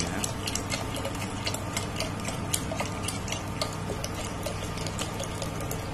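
Milk being poured from a carton into a hot pot of grated carrot cooked in ghee, with irregular crackling and ticking throughout, over a steady low hum.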